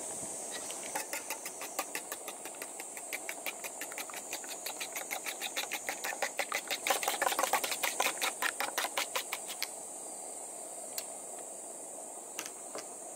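Metal spoon beating an egg with grated cheese in a small stainless steel cup: quick, even clinks of the spoon against the cup, about five a second, starting about a second in, growing louder around seven seconds and stopping near ten seconds, followed by a few single taps.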